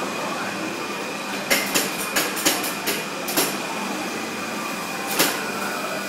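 Steady mechanical din of a swinging amusement-park thrill ride running, with a quick run of sharp clacks about a second and a half in and another single clack near the end.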